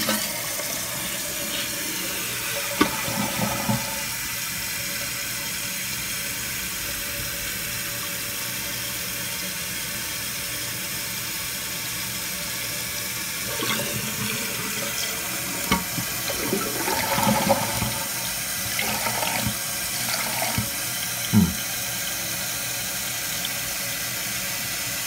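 Toilet flushing and its tank refilling through a newly fitted Fluidmaster fill valve: a steady rush of water, with a few short knocks in the second half.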